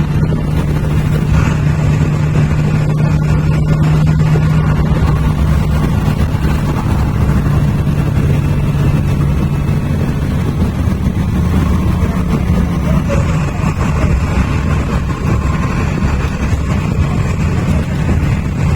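Engine of a Comil-bodied Volkswagen bus running under way, a steady low drone for about the first ten seconds, after which the note changes and turns rougher.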